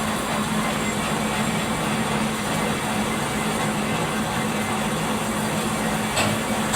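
Steady workshop machine noise with a low hum underneath, and a light knock about six seconds in.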